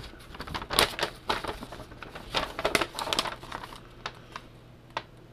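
Paper rustling and crinkling as a large folded instruction sheet is unfolded and handled, in irregular crackles that thin out to a few separate ticks near the end.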